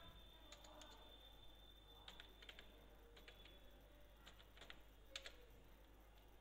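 Faint computer keyboard typing: irregular single keystrokes with short pauses between them.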